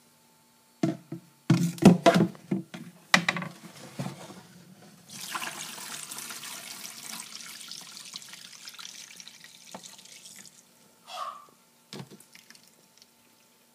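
A plastic basin knocking and clattering several times against the bathtub, then soapy rinse water poured out of it into the tub, splashing steadily for about five seconds before it stops. A short squeak and a single knock follow near the end.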